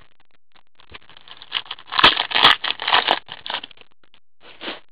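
Trading cards being handled in gloved hands, slid and flicked against one another: a quick run of scraping rustles starting about a second in and lasting two or three seconds, then a few faint taps near the end.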